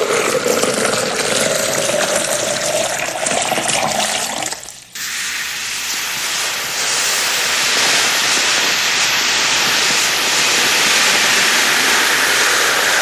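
Loud rushing, hissing noise effect. In the first few seconds a whistling tone slowly rises over it. The noise breaks off for a moment about five seconds in, then carries on steadily.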